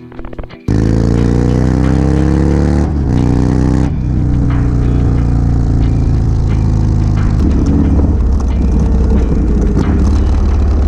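Motorcycle engine heard through a helmet microphone, accelerating. It starts abruptly under a second in and rises in pitch. It drops back at a gear change about three seconds in, rises again, then holds a steady cruising note.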